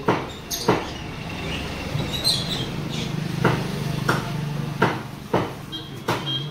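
Seven sharp knocks at uneven spacing, two near the start and five more in the second half, over a steady low hum.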